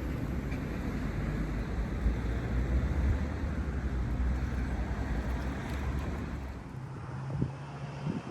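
Wind buffeting the microphone in a steady low rumble, easing off about six and a half seconds in.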